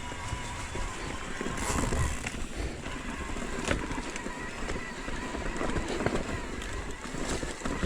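Electric mountain bike climbing a rough dirt and rock trail: tyres rolling and crunching over the ground, with scattered knocks and rattles from the bike and a faint steady whine of its motor.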